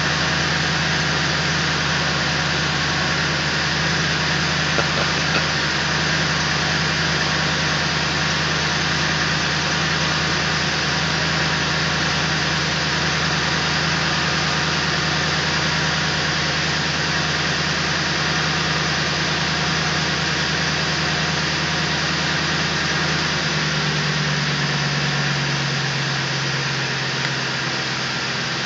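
Pickup truck engine idling steadily, a constant low hum with a noisy wash over it. Near the end the hum shifts and its deepest rumble fades.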